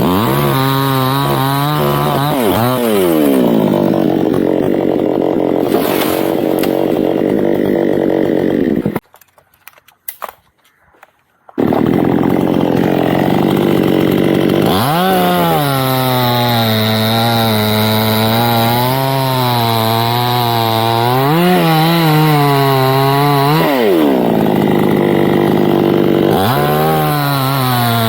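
Two-stroke chainsaw cutting teak wood, its engine pitch repeatedly rising and sagging as the chain bites and frees. The sound drops out to near silence for about two and a half seconds near the middle.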